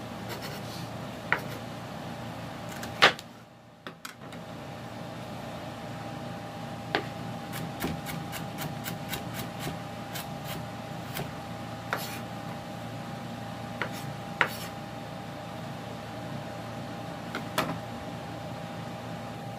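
Chef's knife dicing carrot on a wooden cutting board: scattered sharp knocks of the blade meeting the board, the loudest about three seconds in, with a quicker run of lighter chops near the middle. A steady hum with a faint high whine sits underneath.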